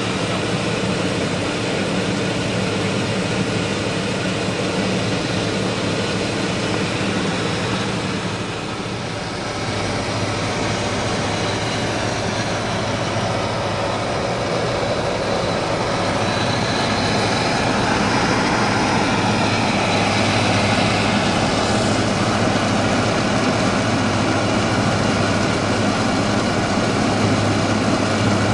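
Steady drone of a Cessna P210 Silver Eagle's turboprop engine and propeller heard inside the cockpit in flight, with a strong low hum and a hiss of airflow, dipping briefly about a third of the way in.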